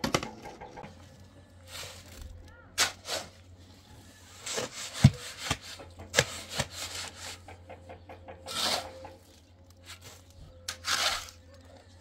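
Irregular knocks and short scraping or rustling noises, with a faint low steady hum underneath.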